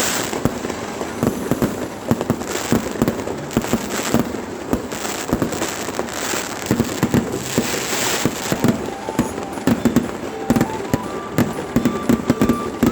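Fireworks going off in rapid, irregular succession: a dense run of bangs, pops and crackles, with stretches of hissing in the first half.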